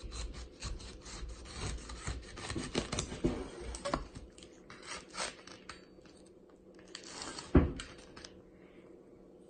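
Chef's knife sawing back and forth through a pineapple's tough rind, a rapid run of rasping strokes for about the first four seconds that then thins out. One loud knock comes about seven and a half seconds in.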